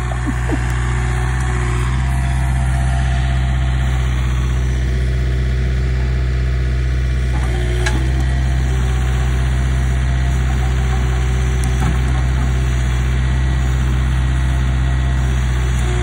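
John Deere 110 backhoe loader's diesel engine running steadily at idle, with an even low drone.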